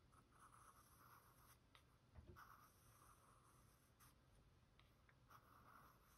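Very faint graphite pencil scratching on sketchbook paper in short separate strokes, as fine lines are drawn.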